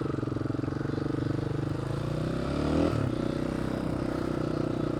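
Dirt bike engine running under way at a steady pitch, the note shifting about three seconds in, as with a throttle or gear change.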